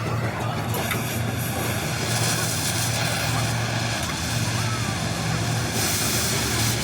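A motor running steadily with a low drone, under a noisy background hiss.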